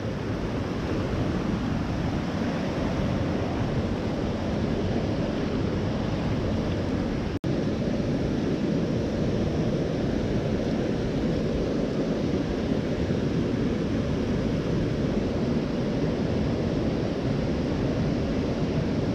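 Mountain stream running: a steady rush of water noise that cuts out for an instant about seven seconds in.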